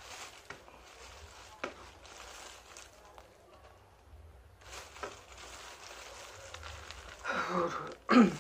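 A few short, soft clicks from eating, then near the end two loud vocal sounds from the eater, the second the louder.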